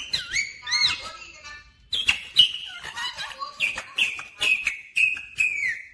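Rose-ringed parakeet whistling and calling: two or three swooping whistled notes in the first second, then after a short lull a quick run of about six short, high calls, the last one falling in pitch.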